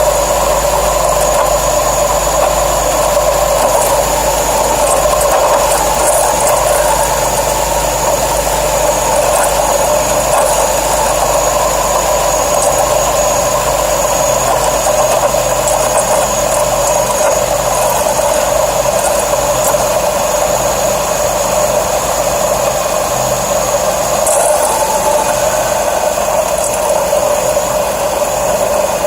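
Pontiac Grand Prix GT engine idling steadily, with a constant high whine from the serpentine belt drive. The owner suspects a worn idler pulley or belt tensioner.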